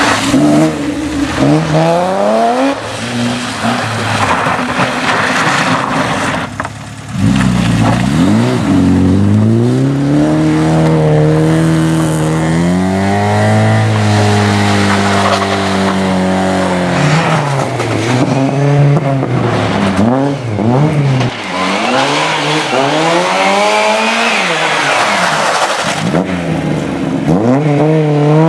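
Rally saloon car engines, a BMW 3 Series and then Lada saloons, revving hard under full throttle. The pitch climbs and drops repeatedly through gear changes as the wheels spin in the mud, with a brief break about seven seconds in.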